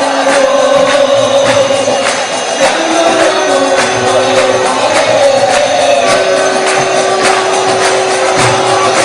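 Devotional kirtan: a group of voices singing a chant, with a steady beat of small hand cymbals and long held notes underneath.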